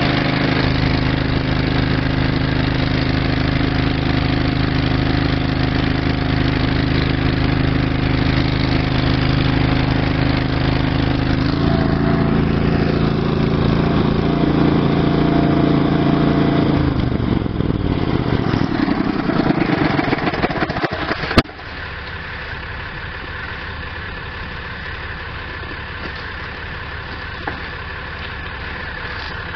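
An engine idling steadily. Its note changes about twelve seconds in, then winds down and fades a few seconds later. A sharp click follows about two-thirds of the way through, after which only a quieter steady hum remains.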